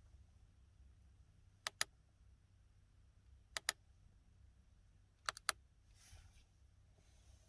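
Car door latch and lock mechanism clicking: three sharp double clicks a couple of seconds apart, each two quick metallic clicks close together, then a faint rustle near the end.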